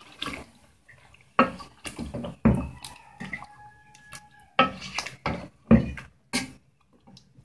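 Wooden spoon stirring chicken pieces through a thick yogurt-and-onion paste in a metal pot: a string of short, wet squelches and scrapes.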